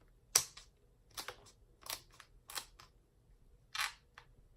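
A run of short, crisp crackling snaps, about one every two-thirds of a second, the loudest just after the start: boiled shellfish shells being cracked and peeled by hand.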